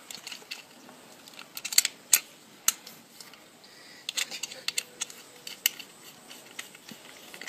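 Irregular small metallic clicks and scrapes as a Phillips screwdriver turns the clamp screw on an angle grinder's wheel guard, tightening the guard in place, with knocks from the guard being handled.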